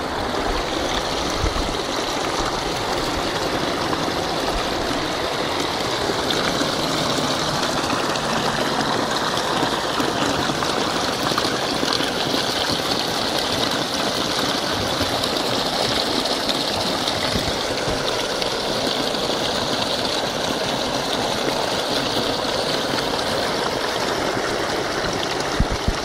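A small spring stream pouring in a thin cascade over a low ledge of earth and stones and splashing steadily into a foamy pool below.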